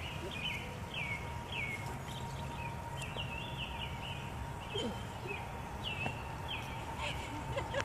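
A songbird calling over and over in short, high, downward-slurred chirps, about one or two a second, over a steady low background rumble.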